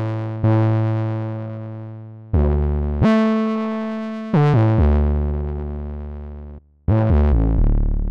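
Bitwig FM4 synth playing a monophonic FM bass patch, pitched an octave down: a slow line of deep notes, each starting sharply and fading. The pitch glides down between notes about four seconds in and again near the end. The tone is rich, with oscillator 3 now modulating the carrier of oscillator 1.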